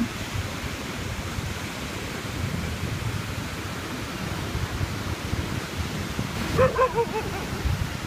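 Sea surf breaking on the shore, a steady rushing noise with wind rumbling on the microphone. A short high-pitched yelp cuts in about six and a half seconds in.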